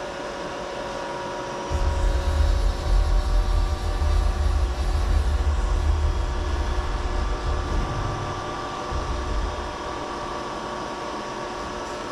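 Steady hum of a CNC mill standing powered up, with a low, uneven rumble from about two seconds in to about nine seconds in as the spindle head is jogged down in Z.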